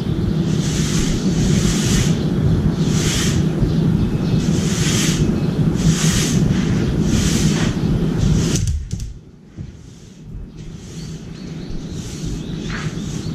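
Wind buffeting the microphone: a steady low rumble with gusts of hiss coming and going, which drops away suddenly about nine seconds in and then slowly builds again.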